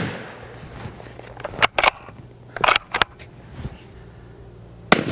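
Suppressed .308 bolt-action rifle fitted with a Rugged Razor 7.62 compact suppressor. The echo of a shot dies away, the bolt is worked with a quick series of metallic clicks about two seconds in, and another shot fires near the end, its echo trailing off.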